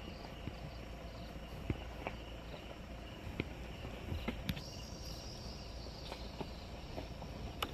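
Insects chirring steadily, with a second, higher insect note joining a little after halfway. Underneath is the low rumble of a slowly moving car, with scattered short knocks as it rides over a rough dirt road.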